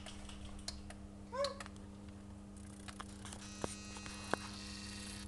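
A steady low electrical hum with scattered faint clicks, and a short chirp about one and a half seconds in.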